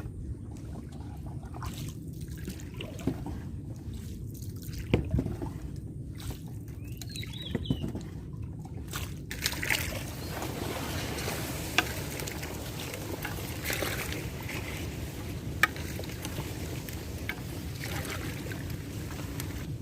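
Water sloshing and trickling, with a few sharp knocks.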